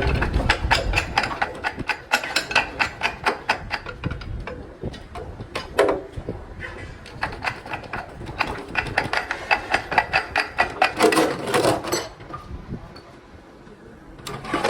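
Rapid metallic clicking from hand tools working on a Hino truck gearbox, about five clicks a second, in two runs with a short pause between.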